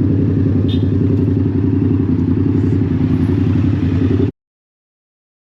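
Loud, steady vehicle running noise with a low drone, heard from a car on the road. It cuts off abruptly about four seconds in.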